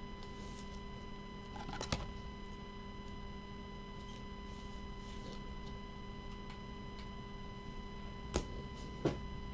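Steady electrical hum, broken by three short clicks, one about two seconds in and two close together near the end.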